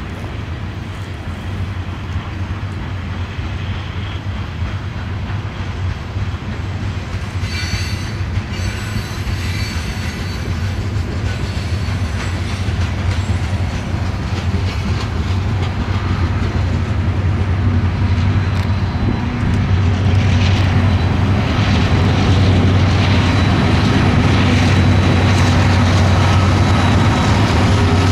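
Freight train of hopper cars rolling past, wheels clicking and squealing briefly, over a steady low diesel drone. The drone from the trailing pair of Union Pacific diesel locomotives grows louder through the second half as they approach.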